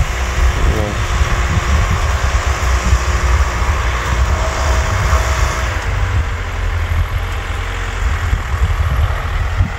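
Farm tractor's diesel engine running under load as it pulls a ridging implement through dry soil, a steady low rumble.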